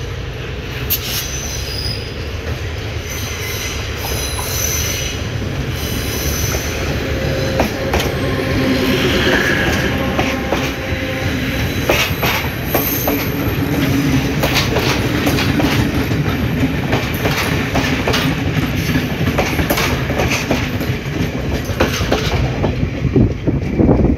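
Train of passenger coaches rolling past close by, the wheels clicking over rail joints and points with some wheel squeal over a steady rumble. It gets louder about a third of the way in as the coaches come alongside.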